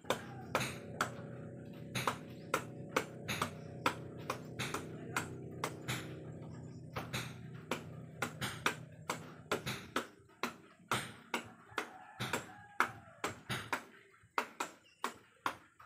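Meat cleaver chopping repeatedly into a peeled unripe jackfruit resting on a woven bamboo tray, sharp chops about two a second. A steady low hum with several tones runs under the chopping and stops about ten seconds in.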